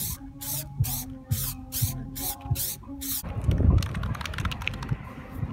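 Aerosol spray can hissing in short even bursts, about two a second, as a light coat is sprayed onto wire grille mesh. The spraying stops about three seconds in, leaving low handling rumble and a few small knocks.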